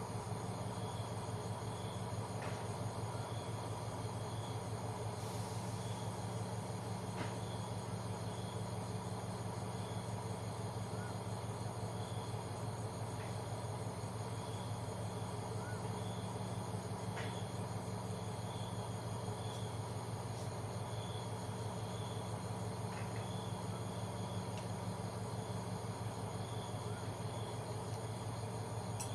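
Night insects, crickets among them, chirping steadily: a short high chirp repeating at an even pace over a fine continuous trill. Under them runs a steady low hum, with a few faint ticks.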